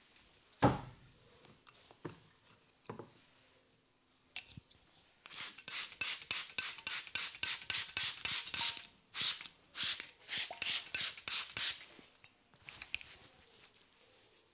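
Massage strokes rubbing quickly over skin and hair, about three to four strokes a second, in a steady run that starts about five seconds in and stops near the end. A single sharp knock comes about half a second in, with a few fainter clicks after it.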